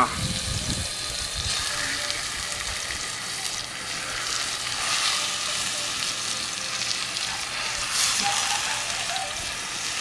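Pieces of raw pork neck searing in hot oil on an iron griddle, a steady sizzle that swells twice.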